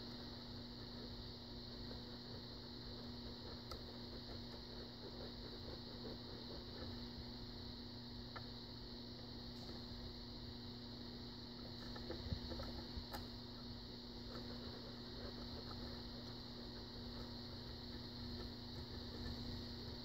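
Faint scrapes and a few small ticks of a steel lock pick working the pins of a brass lock cylinder during single-pin picking, a little busier around the middle, over a steady low electrical hum.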